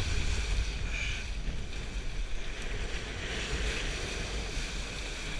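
Wind buffeting the microphone in a steady low rumble, over the rush and splash of water under a kiteboard riding across choppy water.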